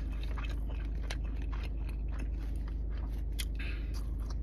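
A person chewing a mouthful of doner kebab, with soft wet mouth clicks and crunches, over a steady low hum.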